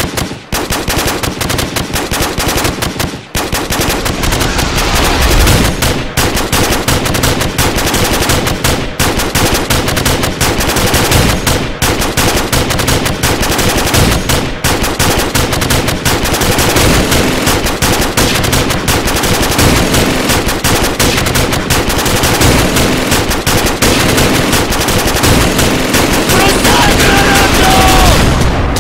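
Rapid automatic gunfire, dense and nearly continuous, with a brief lull about three seconds in.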